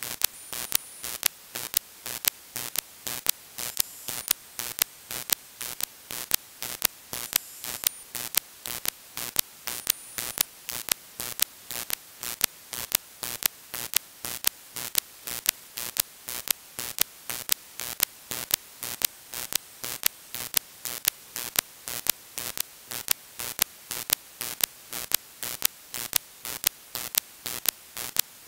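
Software-defined radio receiver audio of 2-metre amateur band interference, demodulated in upper sideband: a steady static hiss broken by sharp clicks repeating evenly a few times a second. It is the noise that interferes with a local 2 m repeater.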